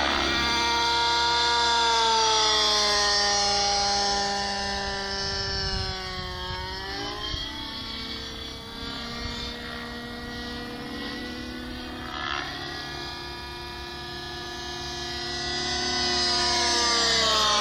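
Gasoline-engined T-Rex 700 radio-controlled helicopter in flight: the engine and rotor note slides down and back up as it manoeuvres. It is loudest near the start and again near the end.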